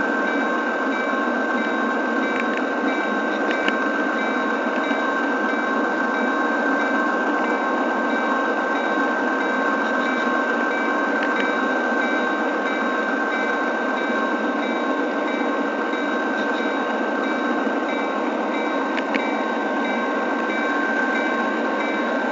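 Model railroad train running along the track, heard from a camera riding on the train: a steady rolling noise with a constant high whine and a few light clicks.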